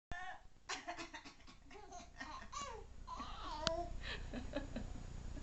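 A baby babbling and laughing in high, rising-and-falling squeals, with one sharp click about three and a half seconds in.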